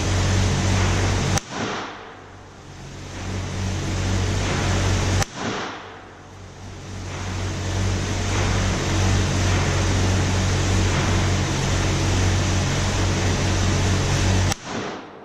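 Three sharp gunshots, about four seconds and then nine seconds apart, over a steady background rush. After each shot the sound drops away and swells back over a couple of seconds as the recorder's automatic level control recovers.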